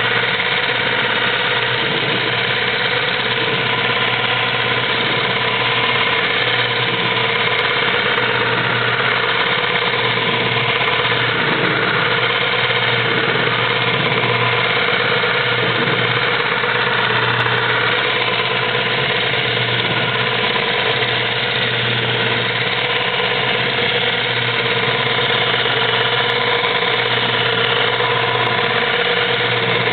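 Longarm quilting machine running steadily as it stitches a gentle meandering pattern across the quilt, a continuous motor and needle-drive hum.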